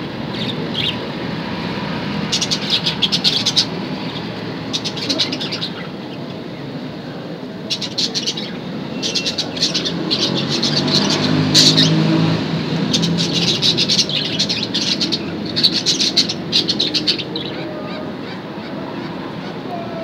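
Budgerigars chattering in repeated bouts of rapid high chirps, each bout lasting a second or two.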